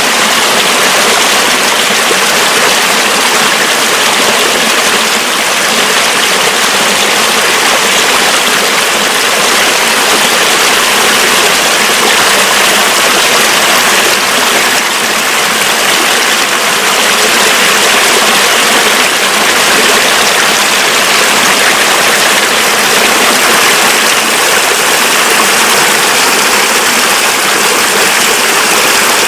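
Mountain river running high with snowmelt: a loud, steady rush of water.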